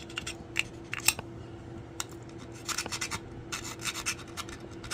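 File blade of a small multi-tool scraping metal battery terminals in short, irregular strokes, cleaning the contacts so new batteries can make a connection.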